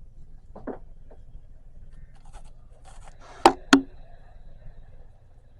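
Two sharp clicks about a quarter of a second apart near the middle, over a steady low hum and faint scraping or rustling noises.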